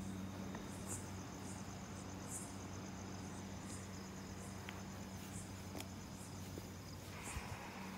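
Crickets chirping faintly, short high chirps about once a second, over a steady low electrical hum.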